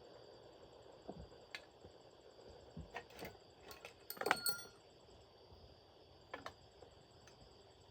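Scattered light taps and clinks of metal parts and tools being handled, with a brief ringing metallic clatter about four seconds in.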